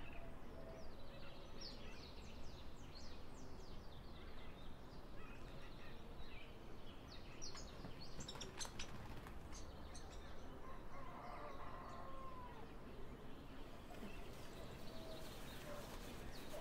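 Outdoor ambience of small birds chirping and calling in quick, scattered notes, with one longer curving call about two-thirds of the way in, over a steady low rumble.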